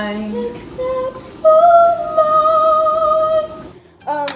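A girl singing unaccompanied in a small room: a few short notes, then one long held note. The singing cuts off suddenly near the end, and a brief vocal sound follows.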